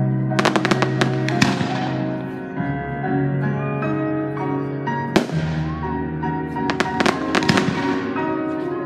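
Aerial firework shells bursting: a rapid cluster of sharp bangs and crackles about half a second in, a single bang a little after five seconds, and another cluster around seven seconds. Music with long held chords plays underneath.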